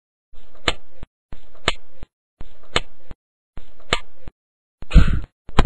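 Four sharp taps about a second apart, each in a short burst of room sound that cuts off abruptly, followed near the end by two louder knocks with a low rumble.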